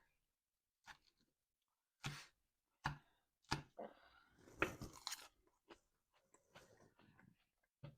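A person chewing a crunchy salad with fried onion and beetroot chips: a few separate crunches, then a dense run of crunching in the middle, then softer chewing and a last crunch near the end.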